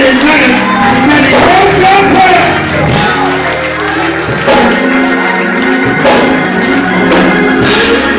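Church music with sustained keyboard or organ notes and steady percussion, with voices shouting and singing over it.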